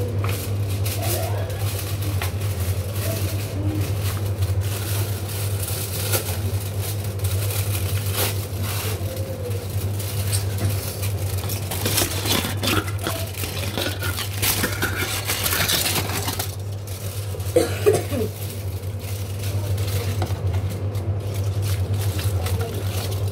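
Scraping and rustling of kitchen handling during sandwich preparation, on and off and busiest about twelve to sixteen seconds in, over a steady low hum.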